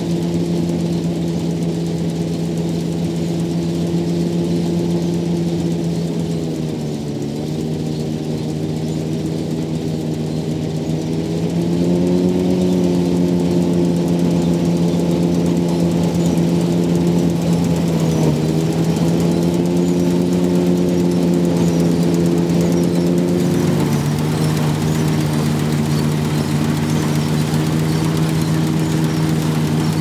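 Fordson Super Dexta's three-cylinder diesel running under steady load, powering a JF MS5 side-mounted combine harvester threshing wheat. The engine pitch dips briefly twice and recovers, and a higher hiss joins near the end.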